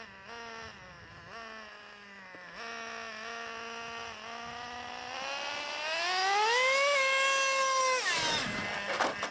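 Traxxas TRX 3.3 two-stroke nitro engine of an RC truck idling with small throttle blips. About five seconds in its revs climb to a high, held whine, then drop off sharply near the end.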